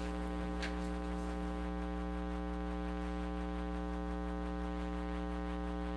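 Steady electrical mains hum, a buzz picked up through the microphone and sound system.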